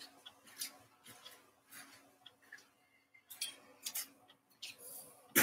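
Scattered small clicks and rustles of a person moving about and walking back into place, over a faint steady hum, with one louder knock right at the end.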